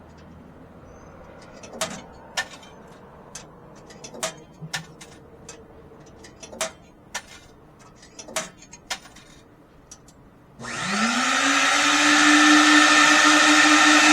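A series of scattered sharp clicks and knocks, then a coin-operated car-wash vacuum starts up near the end: its motor whine rises and settles to a steady pitch under a loud rush of air.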